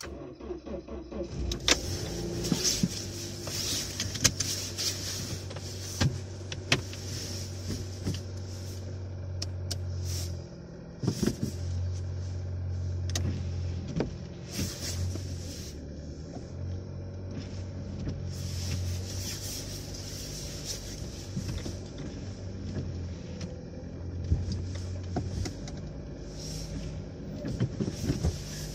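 Car windshield wipers running, their electric motor humming in stretches of several seconds as the blades sweep wet snow off the glass. Sharp clicks and a hiss come through the cabin over a low engine hum.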